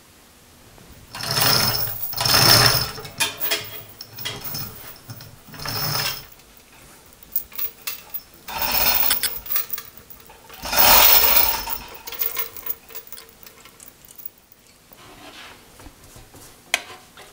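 Steel chain rattling and metal clanking in several bursts of about a second each, as a heavy cast-iron milling-machine casting is lowered on a chain hoist and unhooked. Near the end there is quieter scraping and scrubbing with a few clicks.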